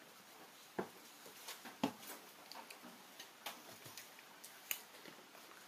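Close-up eating and drinking noises: scattered wet mouth clicks and smacks of chewing, with two sharper knocks about one and two seconds in.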